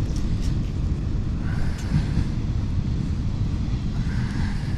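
Steady, uneven low rumble of wind buffeting the microphone.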